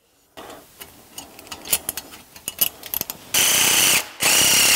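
Clicks and rattles of metal hose clamps and pipe being fitted, then a DeWalt cordless driver running twice, each run under a second with a short gap between, snugging a band clamp on a turbo charge pipe's bellows.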